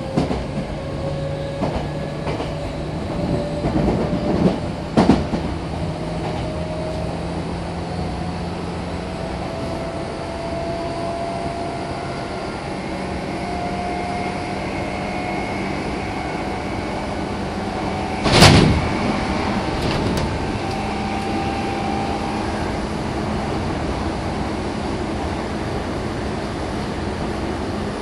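Meitetsu 6500 series electric train running: the rumble of wheels on rail under a faint motor whine that slowly rises in pitch as the train gathers speed. A few light clicks come early on, and a single sharp knock sounds about two-thirds of the way through.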